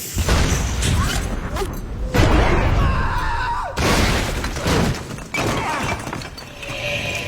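Glass shattering amid a string of loud crashes and impacts, several heavy hits in a few seconds.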